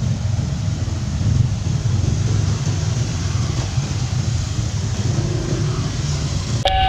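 Cars and motorcycles driving across a level crossing on a wet road: a steady low rumble of engines with tyre hiss. Near the end it changes abruptly to the steady electronic tones of a level-crossing warning alarm.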